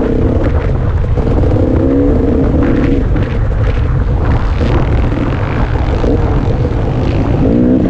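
KTM 300 XC-W two-stroke dirt bike engine running under a working throttle while riding a trail, its pitch wavering up and down, clearest in the first two seconds and climbing again near the end, with wind rumbling on the onboard microphone.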